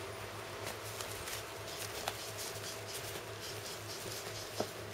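Pug puppies' claws scratching and pattering on towels and cardboard as they scramble over each other, with two sharper clicks, the louder near the end, over a steady low hum.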